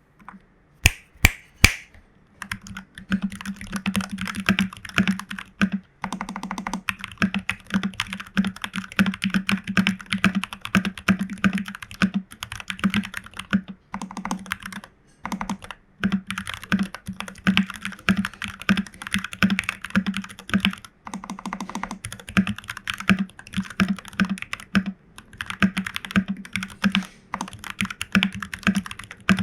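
Typing on a FEKER 84 mechanical keyboard with Jwick Black v2 nylon linear switches and PBT keycaps. Three separate key strikes come about a second in, then fast continuous typing with a few short pauses.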